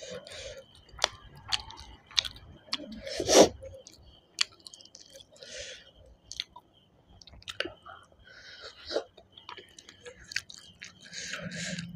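Close-miked chewing and mouth sounds of a person eating rice mixed with chicken curry by hand: soft wet smacks and clicks, with one louder burst about three and a half seconds in.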